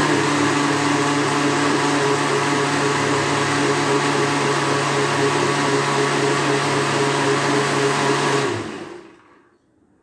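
Electric countertop blender running steadily as it blends boiled pumpkin, then switched off about eight and a half seconds in, its motor winding down over about a second.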